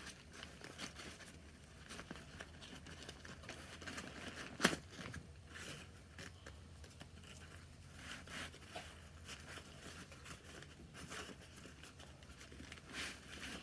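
Faint rustling and crinkling as a packed tent and the straps holding its poles are handled, with one sharp click about four and a half seconds in.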